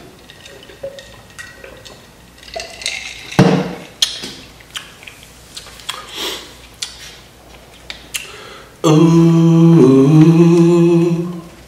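Sips from a glass jar and small eating and handling sounds, with one loud knock about three and a half seconds in. Near the end a man hums one long, steady 'mmm', about two and a half seconds, dipping in pitch midway.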